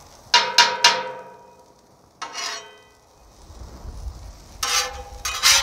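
Metal spatula clanking and scraping on the steel top of a Blackstone flat-top griddle. Three quick ringing clanks come near the start, a short scrape about two seconds in, and two louder scrapes near the end.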